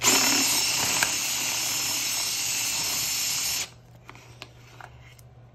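Cordless drill spinning a flexible-tine mixer inside a plastic bottle of tap water, churning the water to rinse texture mud off the tines. It runs steadily for about three and a half seconds, then stops suddenly.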